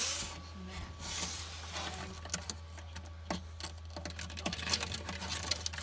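Bearded dragon's claws scratching and clicking irregularly on the ledge and walls of its terrarium as it climbs, the ticks thickest in the second half, over a steady low hum.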